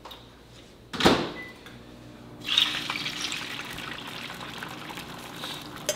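A single knock about a second in, then beaten eggs poured from a bowl into a hot frying pan, a steady hiss of liquid hitting the pan from about two and a half seconds on.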